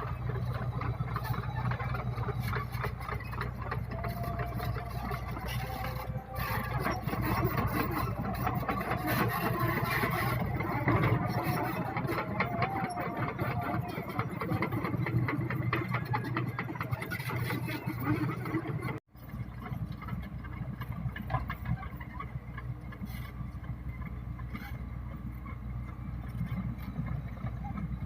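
Diesel engine of heavy earth-moving equipment running steadily with a low hum. The sound drops out for an instant about nineteen seconds in, then carries on.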